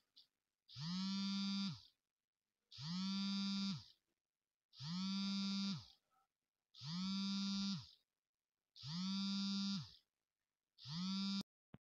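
Smartphone vibrating for an incoming call: a buzz about a second long repeating about every two seconds, six in all, the last one cut short near the end and followed by a click.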